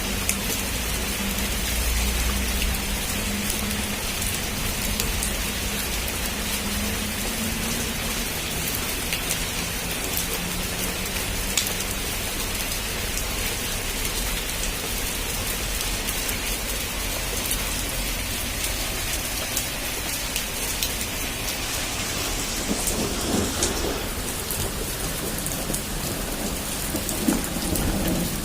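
Heavy rain falling on a roof: a steady hiss with individual drop strikes, and a low rumble of thunder in the first few seconds.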